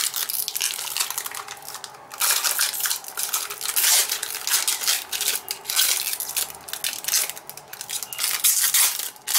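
Clear plastic wrapping crinkling and crackling as it is pulled and peeled off a small black plastic case. It gets louder about two seconds in.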